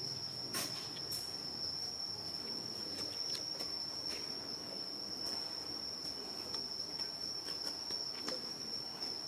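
Insects making a continuous high-pitched, steady drone in the forest, with a few faint clicks and rustles scattered through it.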